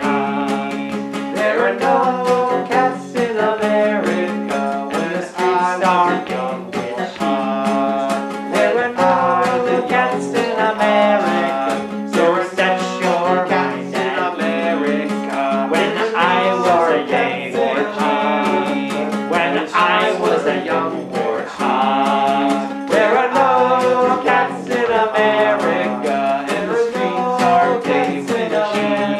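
Acoustic guitar strummed in a steady accompaniment, with a voice singing a melody over it.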